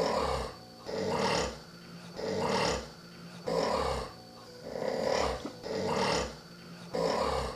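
A person snoring in a steady rhythm, a rough snore about once a second.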